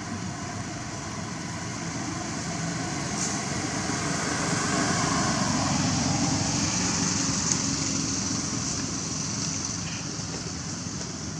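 A motor vehicle passing, its rumble swelling to a peak about halfway through and then fading, over a constant high hiss.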